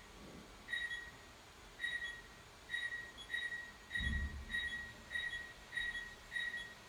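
Visonic PowerMaster alarm sounding its exit-delay beeps while the system arms: short, high, identical beeps, about one a second at first, then quicker from about four seconds in as the countdown nears its end. A low thump comes about four seconds in.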